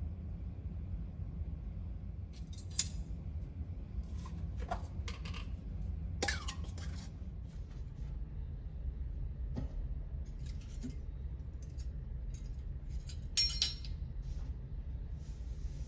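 Glass dishes and kitchen utensils being handled, clinking and clicking several times, with the loudest clatter near the end, over a steady low hum.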